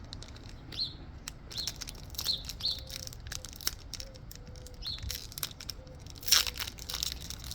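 A songbird chirping, short high calls repeated every half second or so, over clicks and crinkling of a trading-card pack wrapper being handled, with a louder crinkle about six seconds in.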